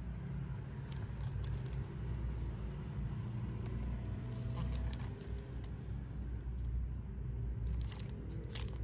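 Handling noise from a plastic syrup bottle being turned in the hands: fingers scratching and rubbing on the bottle and its label in short clusters, about a second in, around four to five seconds in, and near the end. A steady low rumble sits underneath.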